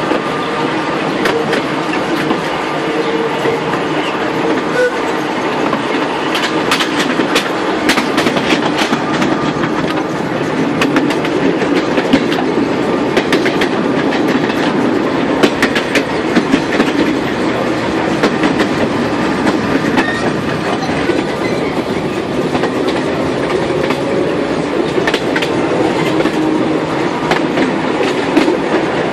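Vintage Sóller electric tram running along its track, heard from its open-sided car: a steady rumble with wheels clacking over the rail joints, the clacks coming thickest in the middle stretch.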